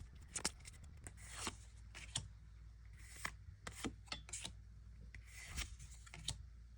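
Faint handling of Pokémon trading cards: cards being slid and flipped one by one, giving soft swishes and scattered light clicks.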